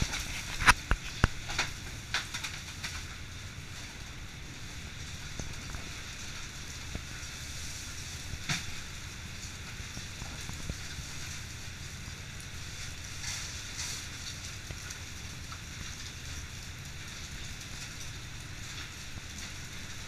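Steady low drone and hiss in a fishing boat's fish room, with several sharp knocks in the first three seconds and another about eight seconds in.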